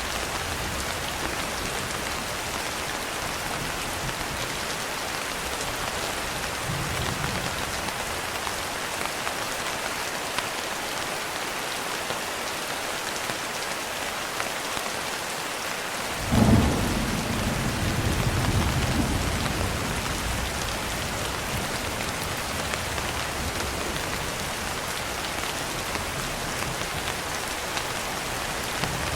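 Steady rain, with a sudden loud thunderclap a little past halfway that rolls on as a low rumble for a few seconds.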